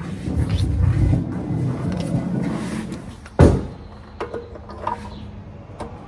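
Low rumbling and scraping of metal being handled under a car for about three seconds, then one loud knock, followed by a few light clicks.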